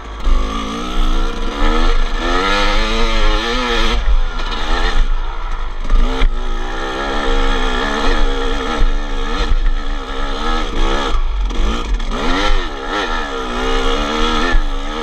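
250cc two-stroke dirt bike engine working a steep hill climb, revving up and falling back over and over, its pitch swinging up and down every second or so.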